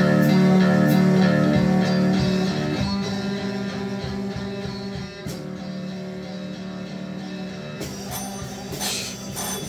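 Electric guitar music with long held notes, loudest for the first few seconds and then somewhat softer. About eight seconds in, clicks and clatter join it.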